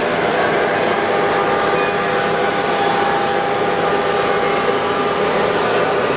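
Model freight trains running on a large layout, a steady rolling noise.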